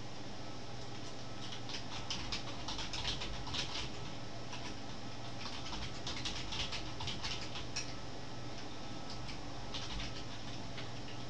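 Computer keyboard typing in three runs of quick key clicks, about two, six and ten seconds in, over a steady low hum.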